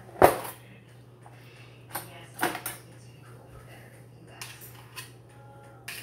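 A metal serving spoon clanking and knocking against a pot and plate as mashed potatoes are scooped and served. There is one loud clank just after the start, then several lighter knocks spread through the rest.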